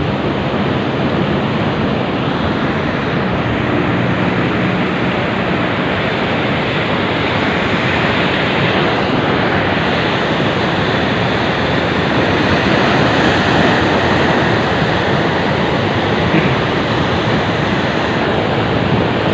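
Steady rushing noise of sea waves at a breakwater, mixed with wind; loud and even, with no let-up.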